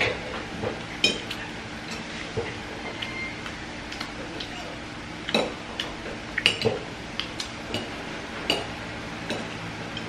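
Metal spoons and forks clinking and scraping against a metal wok and plates in irregular, scattered taps over a steady low hum.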